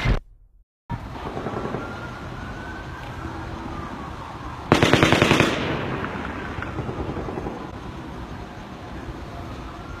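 A burst of rapid automatic gunfire, about ten shots in under a second, about five seconds in, over police sirens slowly rising and falling.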